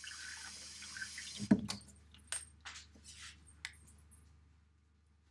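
Kitchen tap running over hands being rinsed, shut off about a second and a half in with a knock. A few short rustles and clinks follow as the hands are dried on a tea towel.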